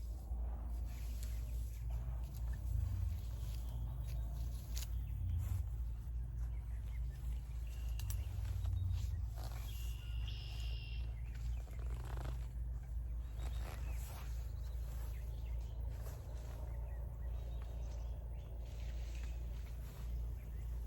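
Hands digging and rustling through loose soil and cardboard, with scattered scrapes and knocks over a steady low rumble. A few short high chirps come through, around a third of the way in and again about halfway.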